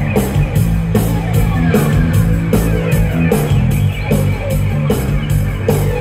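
Live rock band playing an 1980s new-wave song, with guitar and synthesizer keyboard over a steady drum beat of about two and a half beats a second and a sustained bass line.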